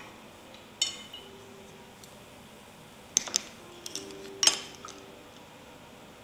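Small ceramic paint dishes clinking: one ringing clink just under a second in, then a quick cluster of sharp clinks and knocks a few seconds later, the last the loudest.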